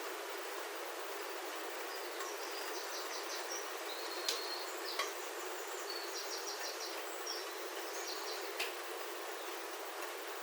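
Steady rain pattering on a roof, heard from inside, with a bird singing short, fast, high trills twice in the middle and a few sharper drop taps.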